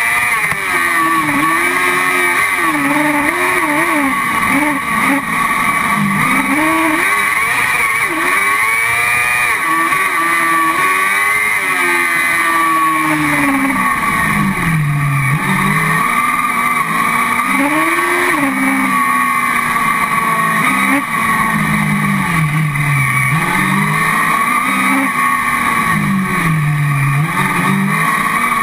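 Car cross buggy's engine heard from onboard, its pitch climbing and falling again and again as it accelerates and lifts off around a dirt track, with a steady high rush above it.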